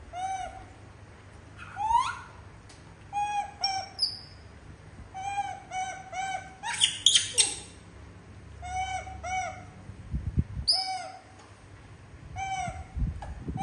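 Young macaques calling over and over: short, arched coo calls, often two or three in quick succession, with one louder, shrill scream about seven seconds in. The calls are hungry begging for food.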